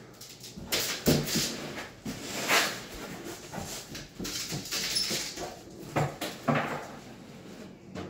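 A man breathing hard and grunting with effort while carrying a kitchen cabinet up stairs, with scattered knocks and bumps of the cabinet and his steps.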